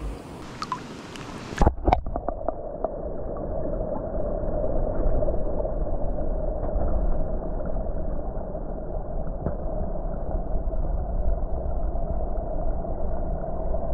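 A waterproof action camera is plunged into a creek pool with a splash about two seconds in. After that, water is heard from under the surface: a steady, muffled rush and low rumble with the highs cut off, and a few faint ticks.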